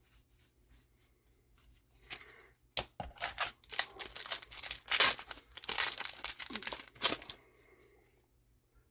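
Foil trading-card booster pack wrapper being torn open and crinkled: a sharp snap about three seconds in, then a run of tearing and crackling that is loudest halfway through and stops a little past seven seconds.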